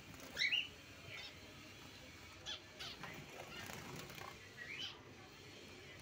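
Pet parrots in the cages giving several short, shrill calls, the loudest about half a second in and a rising call near the end.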